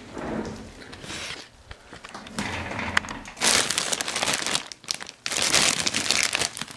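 Clear plastic packaging crinkling and rustling as it is handled and opened, louder from about halfway through, with a short break near the end.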